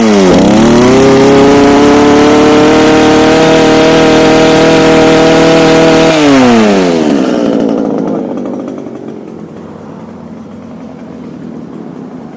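Echo HC2000 hedge trimmer's small two-stroke engine held at high revs for about six seconds, then throttle released, the pitch falling away. It settles to a steady idle, which the owner calls good.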